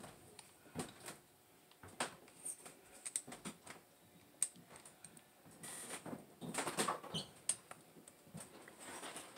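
Scattered light clicks and taps of hands handling the metal and plastic parts of an HPI Savage RC truck chassis, with a longer scraping rustle about six seconds in.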